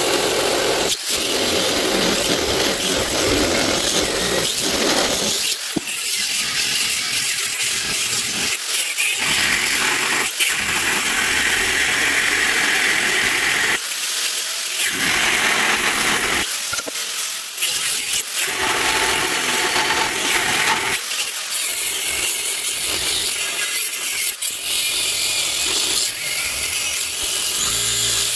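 DeWalt angle grinder with a cutoff disc cutting into thick-walled square steel tubing. The steady grinding breaks off abruptly and starts again many times.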